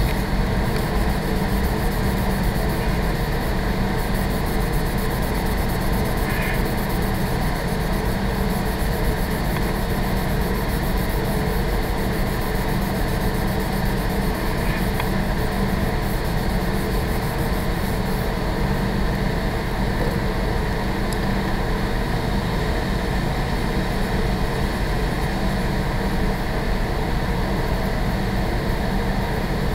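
Building ventilation system running with a steady, fairly loud hum.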